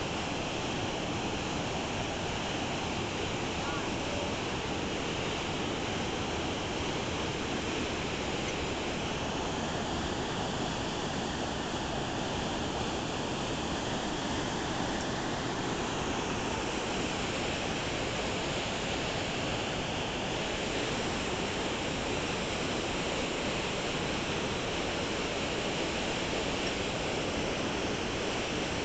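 Steady rush of whitewater cascading down a rocky canyon below, an even roar of falling water with no breaks.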